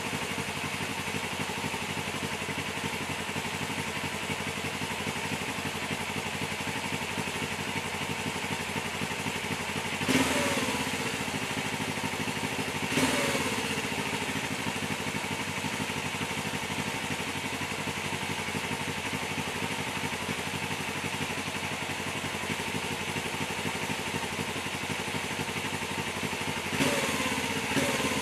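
1991 Suzuki GS400E's 400cc air-cooled four-stroke parallel twin idling steadily during warm-up, through a one-off stainless steel muffler. Four short throttle blips, each falling back to idle: two a few seconds apart partway through and two close together near the end.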